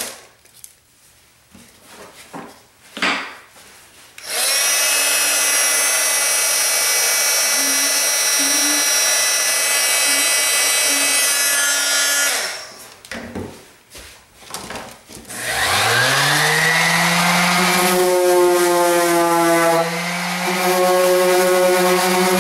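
A small electric power tool's motor runs at a steady whine for about eight seconds and stops; a few seconds later a motor spins up with a rising pitch and runs on steadily.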